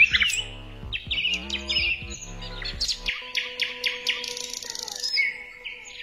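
Small birds chirping and trilling with quick rising and falling notes, over soft background music whose low notes drop out about three seconds in.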